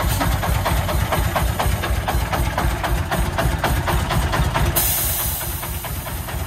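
Diesel engine of a three-wheeled công nông dump truck, uprated to 40 hp, chugging at low speed with a steady fast knocking beat as it creeps forward. About five seconds in, a hiss of air lasts over a second.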